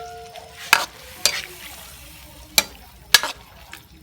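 Frog meat frying in a pan, stirred with a utensil that knocks and scrapes against the pan four times.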